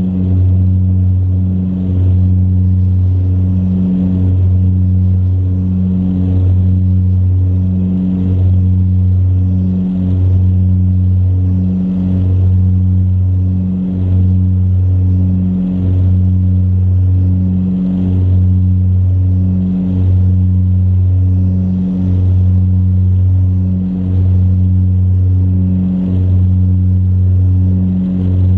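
Saab 340B's turboprop engines and propellers at takeoff power, heard inside the cabin beside the propeller during the takeoff run and climb-out: a loud, deep, steady drone that swells and fades evenly about every two seconds.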